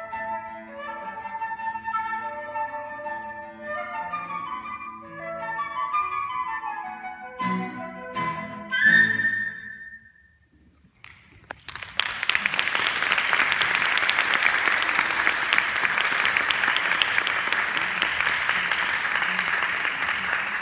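Flute playing a lively tango melody over accompaniment, ending on three sharp accented chords and a held high note. After a second or so of silence, an audience applauds.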